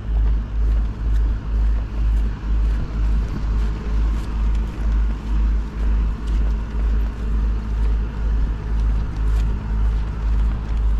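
Steady low thudding, about two a second, from walking footsteps jolting a body-worn GoPro camera.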